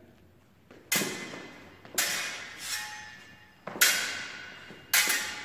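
Rapier blades clashing in a slow, deliberate fencing phrase: four sharp clangs about a second apart, each ringing out, with a lighter touch of the blades between the second and third.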